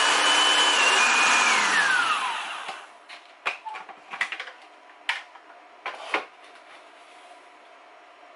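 Food processor motor running on dry mustard seed pods, a steady whine that falls in pitch as it spins down and stops about two and a half seconds in. A few sharp clicks and knocks follow.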